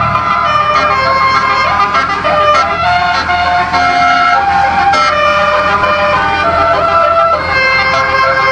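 A Basuri telolet set of twelve compressor-fed air-horn trumpets playing a MIDI-programmed melody. Several horn notes sound together and change pitch step by step, over a steady low hum.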